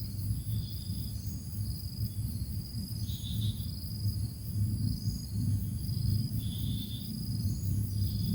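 A steady low hum with high, thin chirps repeating at an even pace, roughly once a second.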